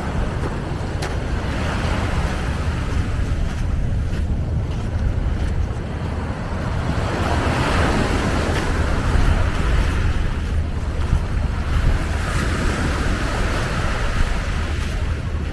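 Surf washing onto a beach, the wash swelling twice, with wind rumbling on the microphone.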